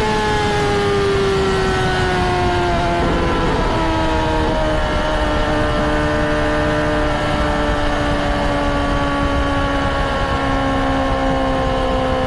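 Honda CBR600RR's inline-four engine running, its pitch sliding slowly down the whole time, with a sudden drop in pitch about three seconds in.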